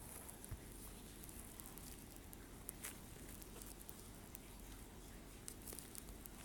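Faint scattered taps and soft clicks of a finger drawing on a phone touchscreen, over a low steady hum.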